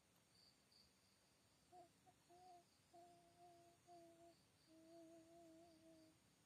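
Faint humming of a short wavering tune in several phrases, starting about two seconds in, with crickets chirping steadily behind it.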